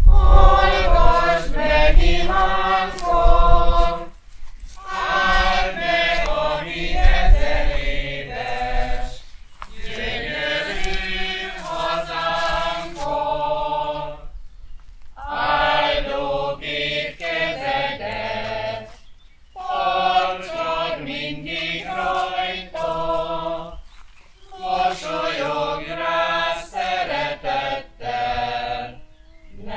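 Voices singing a Hungarian hymn without accompaniment, in sung phrases of about five seconds with short breaks between them.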